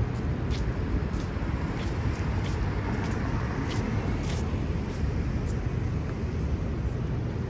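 Downtown street traffic: a steady rumble of cars, with one passing nearer and swelling about three to four seconds in. Scattered light clicks and taps sound over it.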